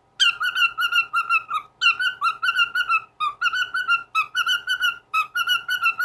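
Cockatiel chattering in quick whistled notes, about five a second, in short repeated phrases with brief pauses between them. The owner takes it for the bird trying to say words like "I want an apple".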